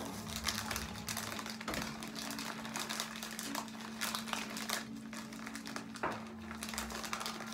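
Crinkly foil chip bag rustling and crackling as a hand rummages inside it, with a sharper knock at the start and another about six seconds in.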